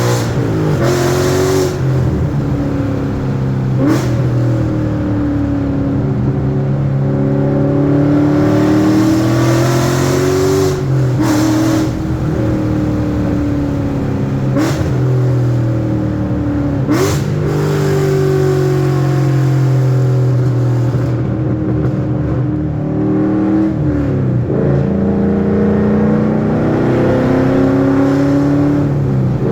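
Ford 5.0 V8 exhaust running through an X-pipe, an H-pipe and a Corsa resonator with no muffler, heard while driving. The engine note rises and falls slowly, with a few sharp clicks along the way. This is a test of whether the setup has cured a metallic, raspy exhaust clap.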